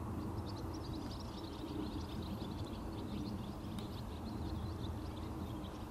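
Small birds chirping and twittering over a low steady rumble.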